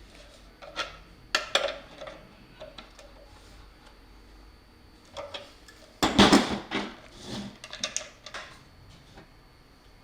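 Metal parts and tools clinking and knocking on a work surface: a string of separate light clatters, loudest in a cluster about six seconds in.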